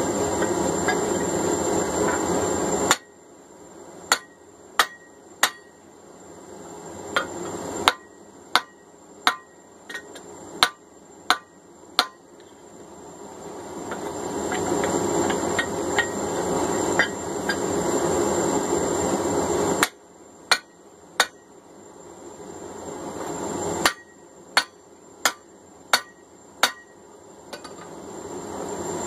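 Hand hammer driving a drift into the freshly punched eye of a hot steel hammer head on the anvil: two runs of sharp, ringing blows about two-thirds of a second apart. A steady rushing noise fills the gaps between the runs.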